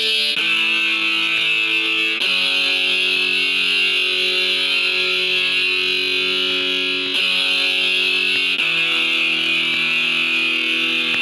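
Background music with sustained guitar notes, the chord changing every couple of seconds.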